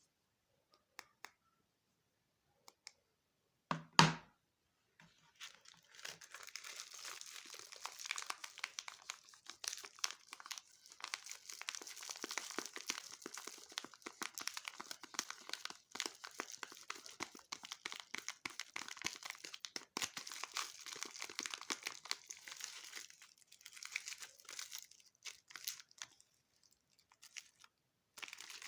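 Soap packaging being torn open and crinkled by hand: a long stretch of crackly tearing and rustling with short pauses, after a single sharp thump about four seconds in.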